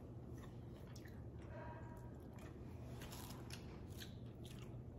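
Quiet kitchen room tone: a steady low hum with scattered faint soft clicks and handling sounds.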